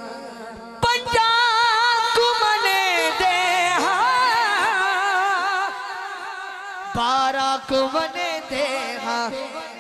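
Male naat reciter singing long, drawn-out notes with a wavering vibrato. The first line starts about a second in and dips in pitch partway through; a second sung phrase follows about seven seconds in.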